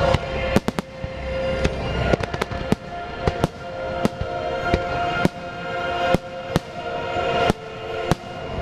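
Aerial firework shells bursting in a rapid series of sharp bangs, roughly two a second and unevenly spaced, with the show's music playing underneath.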